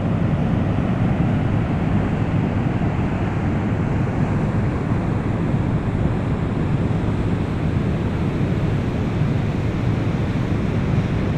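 Water pouring through a dam's open spillway gates into turbulent white water below: a loud, steady, unbroken rush.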